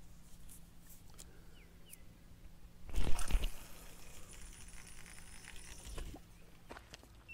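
Fishing rods and tackle being handled on the rocks: scattered small clicks and one brief, loud knocking rustle about three seconds in.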